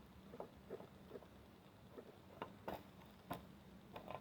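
Faint, scattered clicks and taps of an old floodlight's plastic housing and sensor being handled, about seven in all, over a low steady hum.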